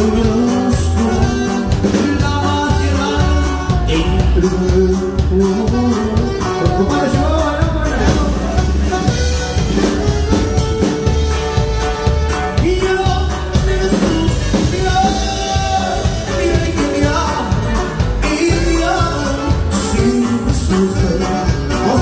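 Live norteño band playing: button accordion and saxophone carrying the melody over bajo sexto and bass, with a man singing.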